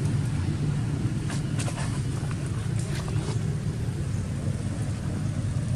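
Steady low outdoor rumble, with a few faint ticks and rustles in the first half.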